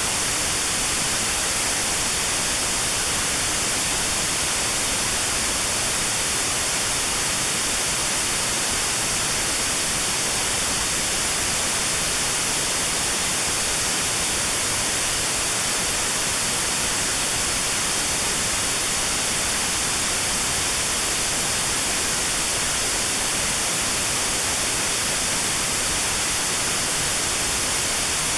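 Steady white noise with a narrow notch cut out around 4 kHz, unchanging throughout: a hiss weighted toward the treble, made as notched sound therapy for tinnitus pitched near 4 kHz.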